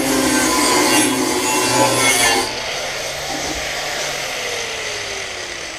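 Handheld angle grinder grinding the edge of a steel plate, then lifted off about two and a half seconds in. It is switched off and its whine falls steadily as the disc spins down.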